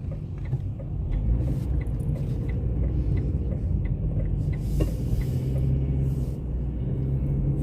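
Car cabin road noise: a steady low rumble from the engine and tyres while driving, with faint regular ticks about twice a second.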